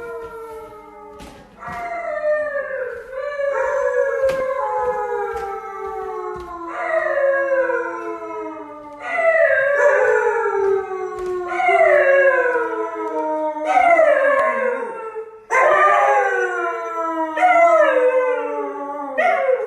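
A dog howling in a long run of drawn-out howls, about eight of them, each sliding down in pitch, growing louder about halfway through.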